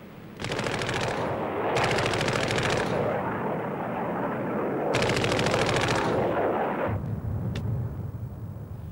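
Aircraft cannon firing in two bursts of rapid automatic fire over a steady rushing noise. The first burst begins about half a second in and lasts over two seconds; the second comes about five seconds in and lasts about a second, before the noise dies down.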